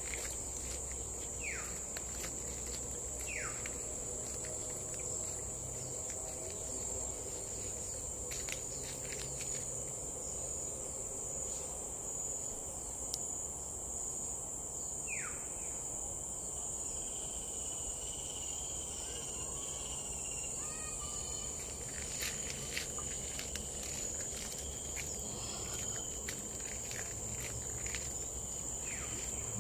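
Insects keep up a steady, high-pitched drone in tropical forest. A few short whistles slide downward, and light footsteps tread on a dirt path.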